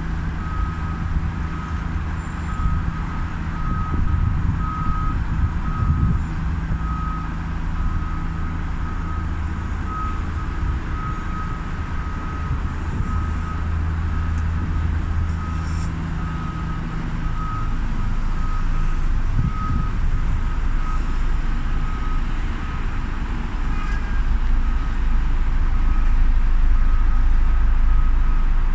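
A construction vehicle's reversing alarm beeping about once a second, a single repeated tone, over a low engine rumble and city traffic noise that grows louder in the second half.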